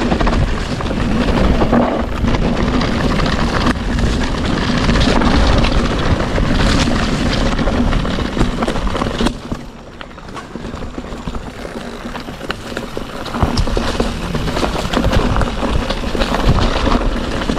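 Mountain bike rolling along a rough dirt trail: steady tyre rumble and rattling, with wind buffeting the microphone. The noise dips briefly about ten seconds in.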